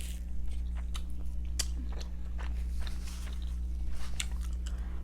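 Close-miked chewing and mouth sounds of a person eating, irregular small wet clicks and crunches, over a steady low hum.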